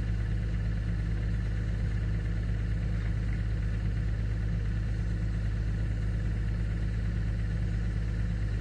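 Excavator's diesel engine running steadily at idle, a constant low hum with no change in speed.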